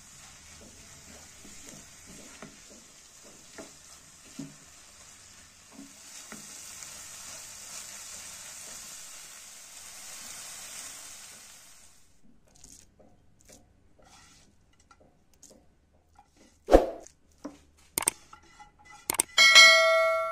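Green pea filling sizzling in a nonstick frying pan while a spatula stirs and scrapes through it; the sizzle stops about twelve seconds in. Near the end, a subscribe-button sound effect: two sharp clicks, then a bell chime that rings out.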